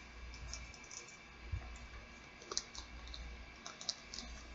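A packaged placard being opened by hand: faint, irregular clicks and light taps from its packaging, about eight in four seconds, over a low steady hum.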